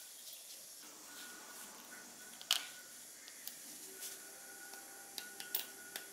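Faint handling sounds of a hand oiler's pump parts: small metal clicks and rubbing as gloved hands fit a coil spring onto the plunger rod, with one sharper click about two and a half seconds in and a few lighter ones near the end.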